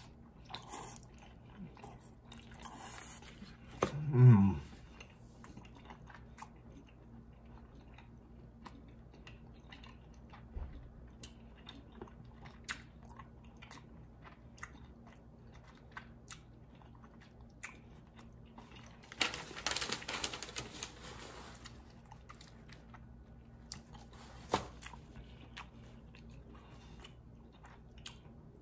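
A person chewing and gnawing on braised chicken feet, with many small wet clicks of teeth and lips. About four seconds in comes a brief vocal sound falling in pitch, and around twenty seconds in a louder noisy stretch of about two seconds.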